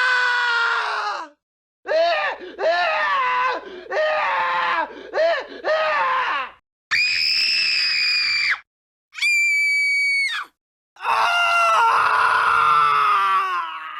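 A run of stock scream sound effects played one after another with silent gaps between them: a string of short, bending yells, then high steady screams, including a very high thin shriek that cuts off sharply, and a long scream fading out near the end.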